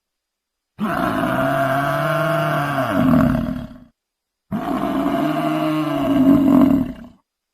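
Buffalo lowing: two long, deep calls of about three seconds each, with a short pause between them.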